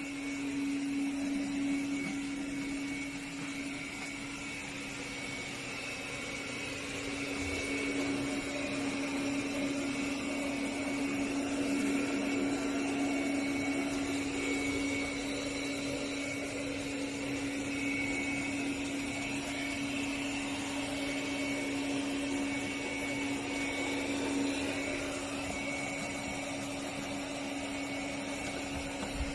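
BPMIO robot vacuum's suction motor running: a steady hum under a whirring noise that swells and eases.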